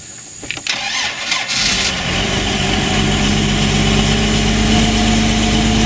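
Mercruiser 4.3 V6 marine engine cranked briefly by the starter, catching about one and a half seconds in and settling into a steady idle.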